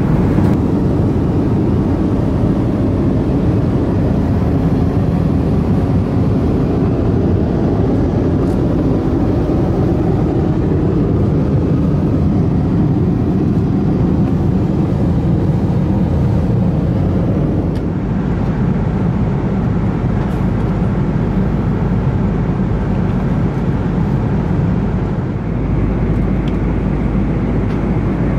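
Steady cabin noise inside an Airbus A330-200 in cruise: a low drone of airflow and engines. The deepest hum grows stronger near the end.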